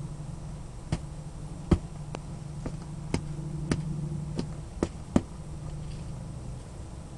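Bates Enforcer boots stomping on and crushing an onion: about eight sharp knocks at uneven intervals, the second one the loudest, over a low steady hum.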